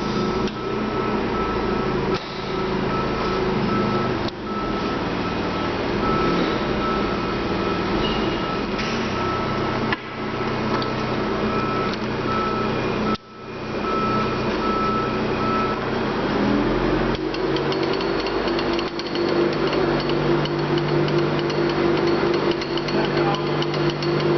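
K.O. Lee SE618 hand-feed surface grinder running with a steady motor hum and whine, broken by a few brief dips. About sixteen seconds in, a stronger hum rises in pitch and settles steady.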